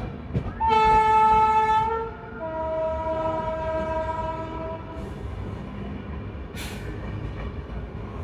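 Train horn blowing twice: a loud blast of about a second, then a lower, quieter tone lasting about two and a half seconds, over the steady rumble of the moving train.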